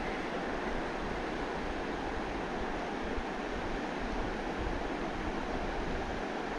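Fast, shallow river water rushing steadily over a stony bed.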